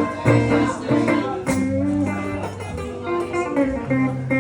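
Live blues band playing an instrumental passage, with guitar lines over bass and drum hits.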